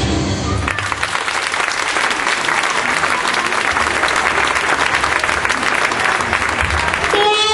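Audience applauding after a song ends. The music stops under a second in, and new music starts near the end.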